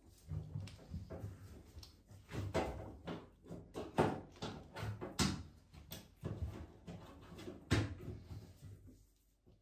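A string of irregular knocks and clunks, about a dozen over several seconds, from parts and tools being handled on a washing machine being taken apart; they die away near the end.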